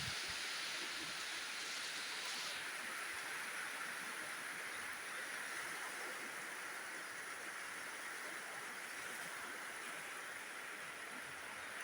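Heavy rain falling, a steady even hiss, with a few brief low wind thumps on the microphone at the very start. The highest part of the hiss eases slightly about two and a half seconds in.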